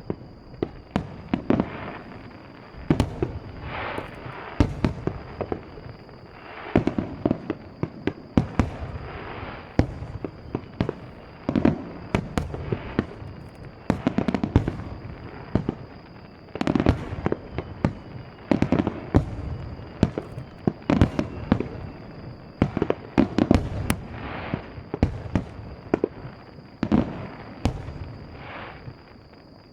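Starmine fireworks finale heard from about 750 m away: many aerial shells bursting in rapid volleys, several sharp bangs a second, with crackle between them, thinning out near the end.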